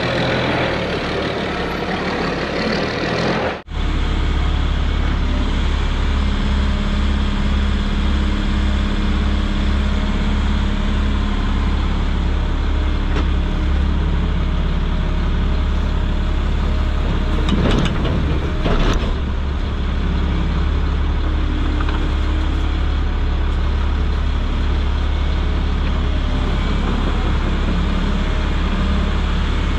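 Diesel dump truck idling with a steady deep rumble while a Volvo EC140E excavator works beside it. A little past halfway, a bucketload of dirt drops into the truck's bed with a brief clatter.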